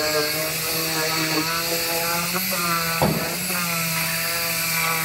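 Pneumatic disc grinder running against sheet-metal body panel, stripping coating to bare metal: a steady whine whose pitch sags and recovers as the disc is pressed on and eased off. A single sharp knock sounds about three seconds in.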